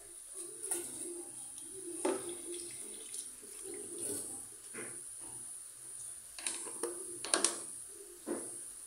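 Tap water running into a stainless steel sink while something is rinsed by hand under the stream, with a few sharp knocks and clatters, the loudest a pair about seven seconds in.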